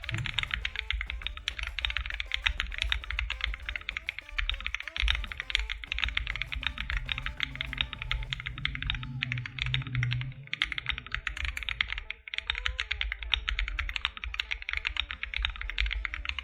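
Fast typing on a MonsGeek M1 aluminium gasket-mount mechanical keyboard fitted with Akko V3 Cream Blue tactile switches and PBT Chicago keycaps: a dense, continuous run of keystrokes, with brief pauses about ten and twelve seconds in.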